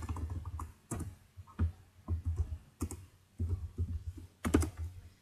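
Computer keyboard typing: irregular keystrokes with a few louder clacks.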